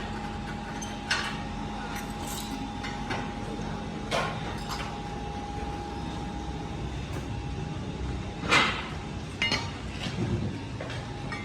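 Steady machine hum in a workshop, with a few scattered knocks and clinks of metal being handled, the loudest about eight and a half seconds in.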